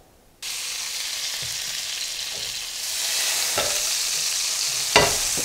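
Butter and olive oil sizzling in a hot cast-iron skillet: a steady hiss that starts suddenly about half a second in and grows a little louder about three seconds in as more olive oil is poured in. A few short knocks sound near the end.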